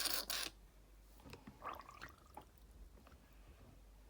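Faint water sounds from an L.O.L. Surprise doll's wee feature squirting and dribbling out water: a few short hissy spurts at the start, then quiet gurgling.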